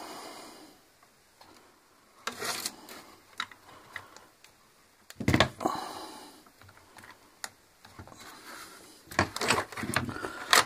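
Irregular plastic clicks, knocks and scrapes as the gearbox housing of a Clatronic FW 2684 electric meat grinder is pried apart and handled with a screwdriver. The loudest knocks come about five seconds in and again near the end.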